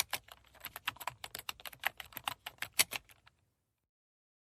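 Typing on a computer keyboard: a quick, irregular run of keystroke clicks that stops about three seconds in.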